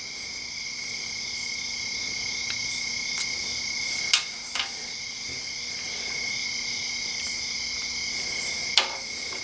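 Steady, unbroken high trill of insects, with a few faint clicks of small parts being handled about four seconds in and again near the end.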